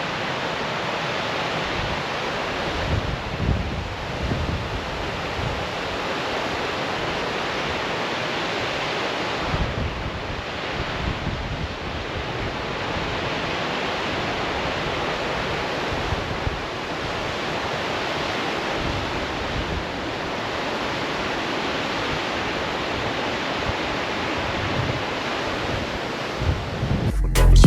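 Steady outdoor rushing noise with irregular low gusts of wind buffeting the microphone.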